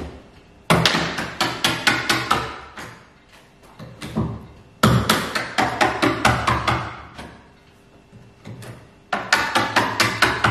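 Quick hammer taps on the lip and seam of a fibreglass boat mould as the hull is worked free, coming in three runs of rapid strikes, each with a short ring.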